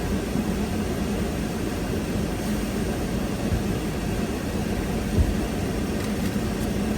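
Steady road and engine rumble inside a moving car, with one low thump about five seconds in.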